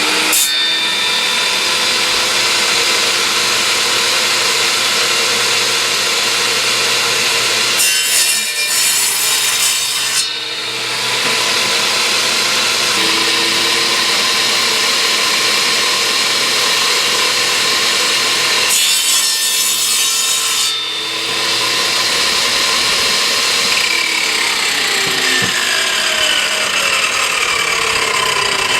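Harbor Freight 10-inch table saw running with a steady whine, cutting through a board twice, each cut a harsher hiss lasting about two seconds. A tone falls in pitch in the last few seconds.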